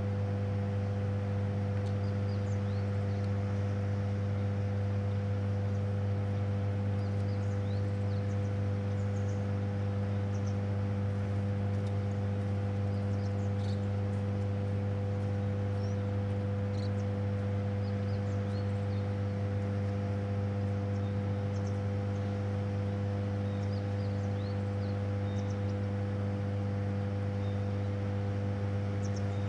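Hydroelectric power station's steady electrical hum: a deep drone with a stack of higher tones above it, unchanging in pitch and level. Faint, scattered high chirps sound over it.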